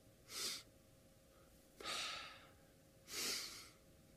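A man's breaths during a repeated breathing exercise: three audible breaths about a second and a half apart, the middle one the longest.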